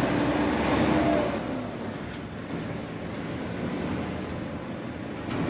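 Motor vehicle running along a road: engine hum mixed with road and wind noise, louder for the first second and a half, then steadier and quieter.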